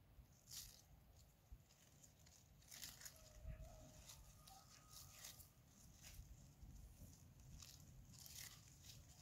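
Faint crinkling and rustling of foil wrapping being handled and unfolded by hand, in short scattered bursts over near silence.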